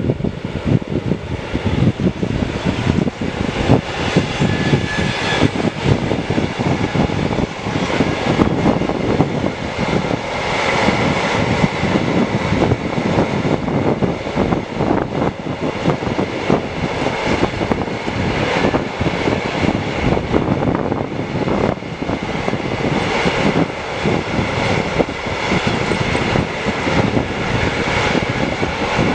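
Long freight train of covered wagons hauled by an electric locomotive passing on a main line: a loud, steady rumble and clatter of steel wheels on the rails, with a thin high ringing that comes and goes.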